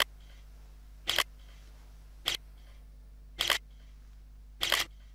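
Camera shutter clicking five times at an even pace, about once every second and a bit, each click a quick double snap, as photos for a thumbnail are taken.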